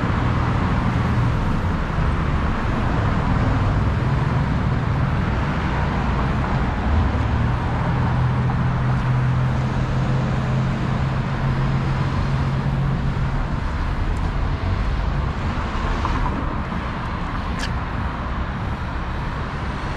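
Steady city street traffic: motor vehicles running and passing. A low hum under it stops about two-thirds of the way through.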